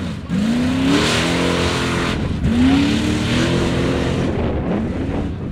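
Lifted Chevy mud truck's engine revving hard, its pitch climbing in repeated surges about every two seconds as the truck powers through the mud.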